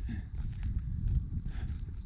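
Footsteps of a person walking on a dry grassland trail, over a steady low rumble on the microphone.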